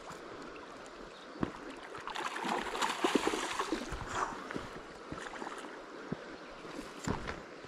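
A hooked trout splashing and thrashing in shallow water at the river's edge as it is drawn in, loudest for a couple of seconds about two seconds in, over the steady rush of the stream. A single sharp knock comes a second and a half in.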